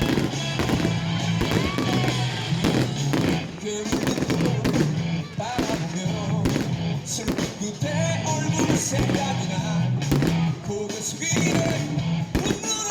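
Fireworks bursting again and again over loud background music played for the display.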